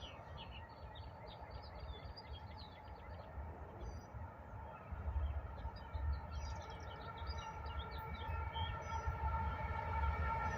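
Diesel freight train approaching: a faint low rumble that grows from about halfway, with steady high tones over it. Birds chirp throughout.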